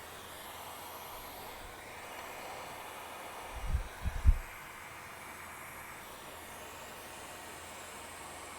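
Steady hiss of a hot-air rework station's airflow blowing on a circuit board to melt the solder under a large chip. A few low thuds come about three and a half to four and a half seconds in.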